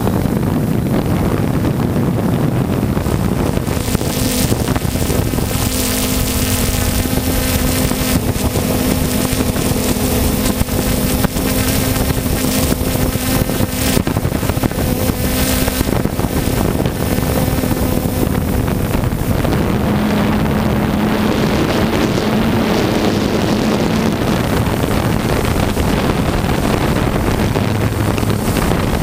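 3DR Solo quadcopter's motors and propellers humming steadily, with wind rushing on the microphone; the hum drops slightly in pitch about two-thirds of the way through as the rotor speed changes.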